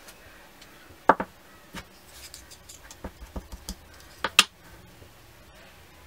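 A cling stamp on a clear acrylic block is knocked down on the desk twice, about three seconds apart, with a few lighter ticks and paper rustles between.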